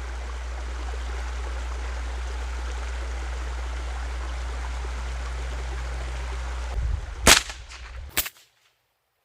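Two .22 LR shots from an AR-15 rifle fitted with a CMMG .22 conversion bolt carrier group, about a second apart near the end, over a steady background hiss; the first shot is the louder.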